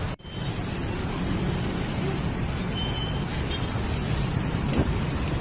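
Steady road traffic noise, with a brief break in the sound just after the start.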